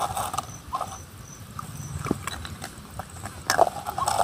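Dry straw crackling and a thin plastic cup rattling as young monkeys handle them, in short scattered bursts, the loudest about three and a half seconds in, over a steady low rumble.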